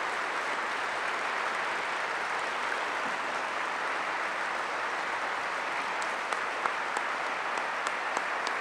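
Audience applauding steadily, with a few sharp clicks standing out near the end.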